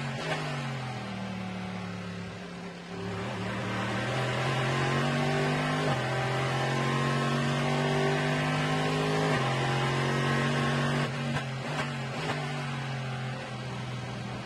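Corvette C6.R GT race car's V8 running at racing speed, its pitch rising and stepping with gear changes. There is a quick run of downshifts about eleven seconds in.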